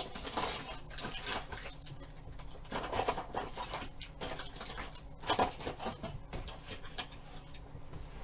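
Plastic clamps being picked up and handled: irregular light clicks, taps and rattles of hard plastic, with a louder clack about five seconds in.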